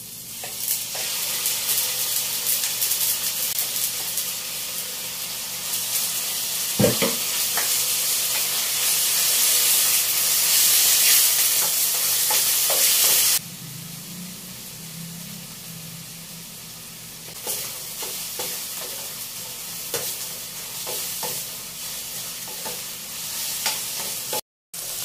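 Mushrooms sizzling in hot oil in a stainless steel frying pan, stirred with a metal spatula that scrapes and clinks against the pan. The sizzle is loud at first and drops abruptly to a quieter level about halfway through.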